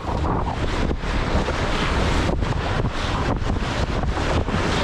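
Wind buffeting the microphone over the rushing hiss of water along the hulls of a Tornado catamaran sailing fast.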